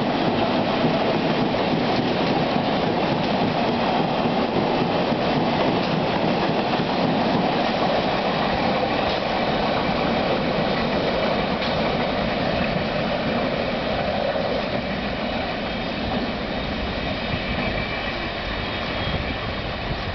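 Freight train of two-axle Wamu covered boxcars rolling past on the rails, a steady rumble of wheels and wagons that slowly fades in the second half as the last wagons draw away.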